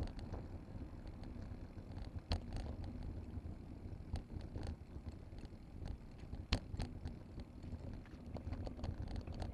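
Wind rumbling on a helmet camera's microphone as a fixed-gear bicycle rolls over brick paving, with scattered sharp rattles and knocks, the loudest about two and a half and six and a half seconds in.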